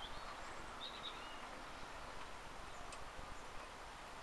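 Faint steady outdoor background noise with a few short, high bird chirps about a second in.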